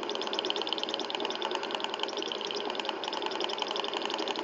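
Small spirit-lamp-heated model Stirling engine running steadily, its mechanism ticking in a rapid, even rhythm.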